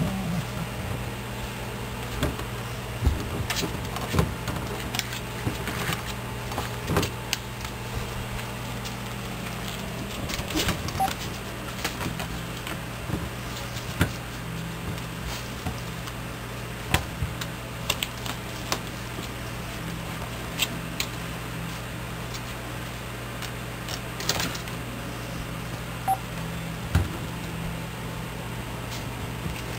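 Irregular knocks and clicks of a plastic pet-door flap and frame as dogs tug a stuffed animal through it, over a steady low electrical hum.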